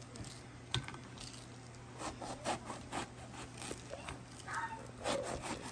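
Kitchen knife cutting and scraping through the thick peel and pith of a grapefruit, in short, irregular rasping strokes, with a sharp click about three quarters of a second in.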